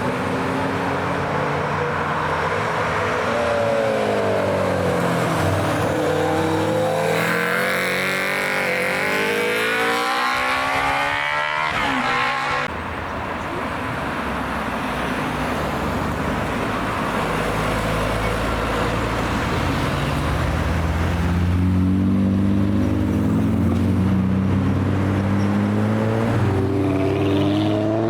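Performance car engines accelerating and revving, one car after another, their pitch rising and falling through gear changes. About halfway the sound changes abruptly to a deep low rumble, then another engine revs up near the end.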